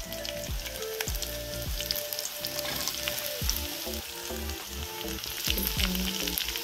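Hot oil sizzling and crackling in a kadai as chopped bitter gourd is tipped onto fried onions and tempering, a steady hiss with scattered spits. Background music with a low melodic line plays underneath.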